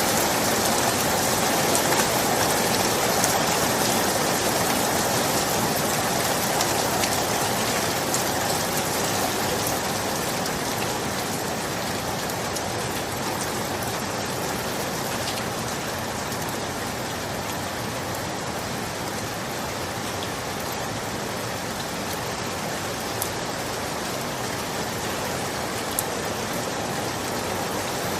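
Steady rain falling on surfaces, an even hiss with a few sharper drop ticks.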